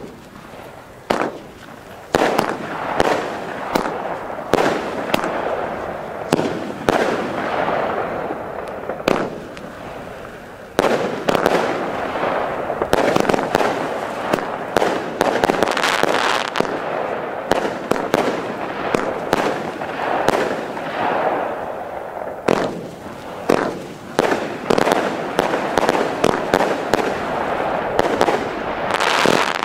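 Chili Snow 25 mm firework battery firing its shots: a fast run of sharp reports and bursting stars. The shots come thick and overlapping through the middle, with a short lull about ten seconds in, and thin to separate shots about a second apart near the end.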